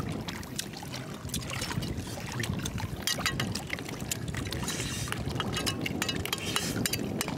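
Oyster shells clicking and crackling on a wet oyster bed: frequent small, sharp clicks over a steady low rumble.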